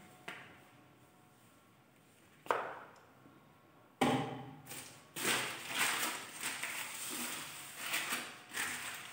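Cleaning and handling noises at a glass TV stand: a light knock just after the start and a sharper knock with a short ring about two and a half seconds in, then from about four seconds a busy run of scuffing and clattering.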